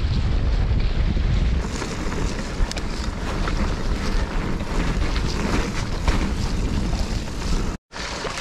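Wind buffeting a rider-mounted camera microphone, with a steady rumble of tyres on the trail while riding a mountain bike and a few small clicks and rattles from the bike. The sound cuts out suddenly for a moment near the end.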